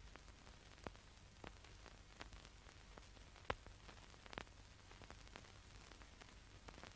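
Near silence: a faint steady hiss and low hum, with scattered small clicks and pops, the sharpest about three and a half seconds in.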